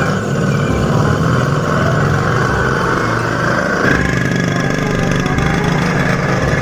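Small engine of a bajaj auto-rickshaw idling steadily, its note shifting slightly about four seconds in.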